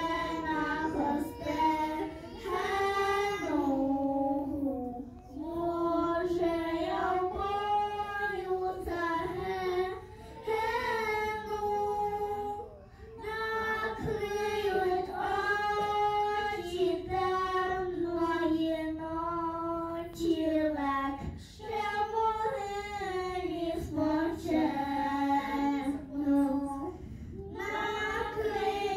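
Young girls singing a song into microphones, in sung phrases with short breaks between them.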